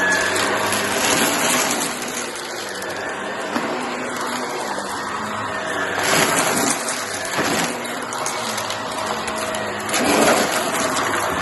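Shark vacuum cleaner running with a steady motor hum and rushing airflow, swelling louder about six seconds in and again near the end as it sucks up cardboard pieces.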